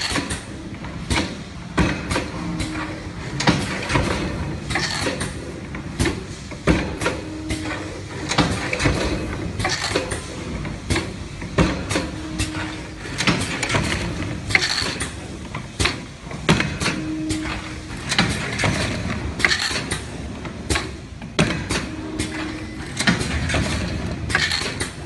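Vacuum blood collection tube assembly machine running: a busy, irregular clatter of clicks and knocks from its moving parts and plastic tubes. A short low hum recurs about every five seconds.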